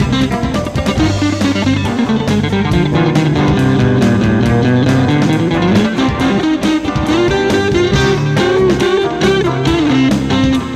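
Blues-rock instrumental break: electric guitar playing over bass guitar and a steady drum beat.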